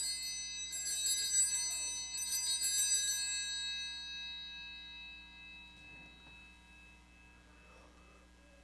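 Altar bells (a cluster of small Sanctus bells) shaken at the elevation of the consecrated host. They ring in two more short shakes in the first couple of seconds, then die away over the next few seconds.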